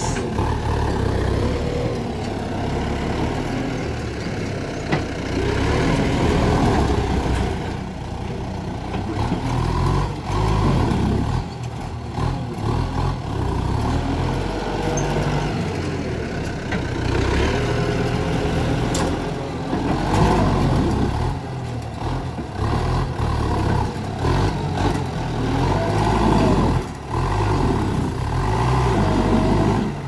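Farm tractor's diesel engine working under load, revving up and down repeatedly.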